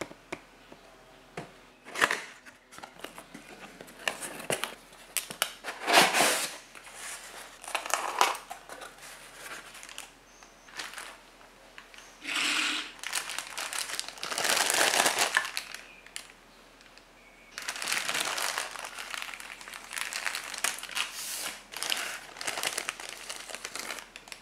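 Hands opening a cardboard figure box and unwrapping the figure from a clear plastic bag: irregular crinkling and rustling of thin plastic and cardboard, with a few sharp clicks and knocks, loudest a few seconds in.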